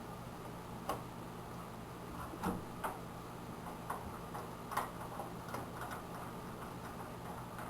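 Scattered light clicks and taps, about five at uneven intervals, over a steady low hum: small metal parts and a screwdriver being handled in a desktop computer case while the video card is unscrewed and the expansion cards are taken out.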